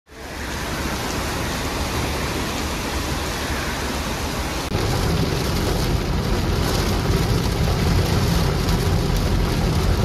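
Steady hiss of rain falling, with a deep rumble that comes in suddenly about halfway through and carries on.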